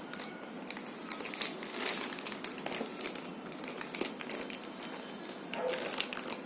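Crinkling and rustling of a shipping packet being handled, a dense, steady run of small crackles.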